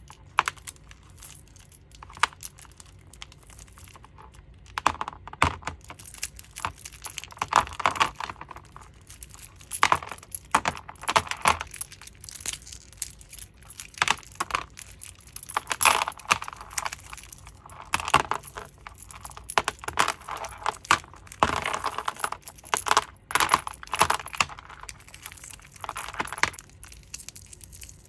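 A dried-out homemade squishy squeezed and pressed by hand, giving crisp clicking and crackling in repeated bursts of a second or two, with short pauses between.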